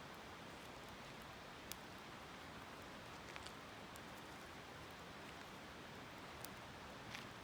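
Faint, steady rush of a flowing river, with a few sharp crackles from a wood campfire.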